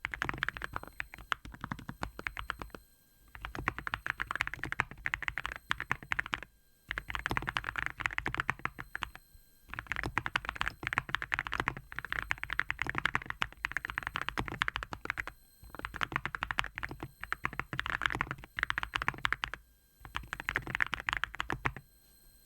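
Fast typing on a Cerakey Nada65 keyboard, with a strongly muted "koto-koto" keystroke sound. The keystrokes come in runs of a few seconds, broken by short pauses.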